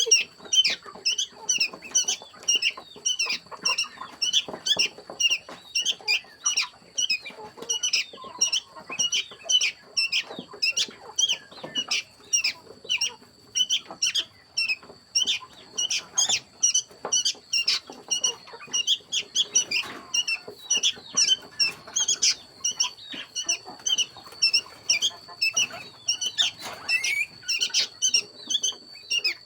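Many chicks peeping: a dense run of short, high chirps, about three a second, that never pauses. A steady high whine runs beneath them.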